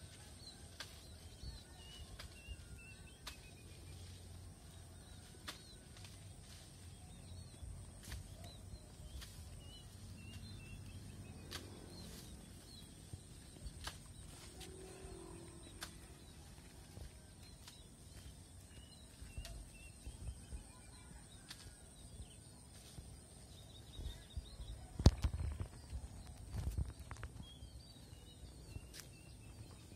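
Faint rural outdoor ambience: small birds chirping now and then over a low rumble, with a thin steady high whine that stops about 23 seconds in. Scattered sharp clicks throughout, and a few louder thumps about 25 seconds in.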